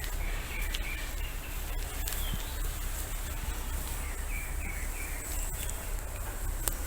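Small birds chirping in short phrases a few times over a steady low rumble, with scattered light clicks.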